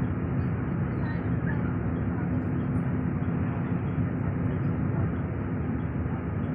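Steady drone of a moving bus heard from inside: engine hum and road noise at an even level.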